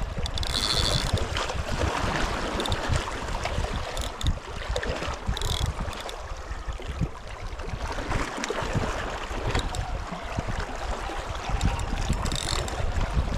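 Wind buffeting the microphone and sea water sloshing against the rocks, with a spinning reel being cranked under the load of a hooked fish. Three short high hisses cut through, about half a second in, at five and a half seconds and near the end.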